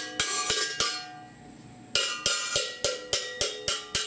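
Small hand hammer striking a sheet-steel piece, each blow ringing metallically. Four quick blows come in the first second, then a pause, then a steady run of about three blows a second.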